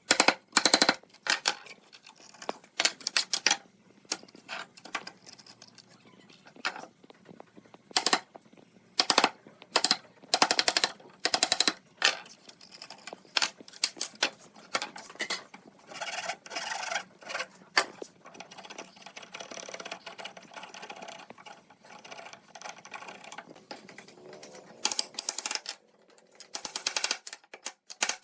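Woodworking tool work: repeated short bursts of rapid rattling clicks, with quieter handling noise between them.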